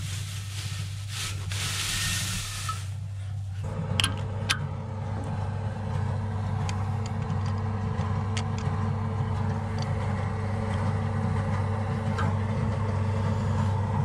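Tractor engine idling steadily throughout. Over the first few seconds there is a rustle of hay being pulled out of a jammed baler auger. Then come sharp metallic clicks, about 4 seconds in, and a few light ticks as a new shear pin is fitted at the auger's drive sprocket.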